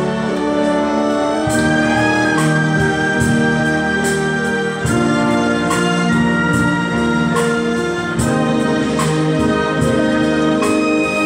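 Symphony orchestra playing live, with strings and harp holding sustained chords that change every second or so.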